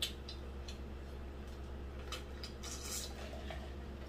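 A person drinking from a large glass jar, heard as faint scattered clicks and swallows, over a low steady hum.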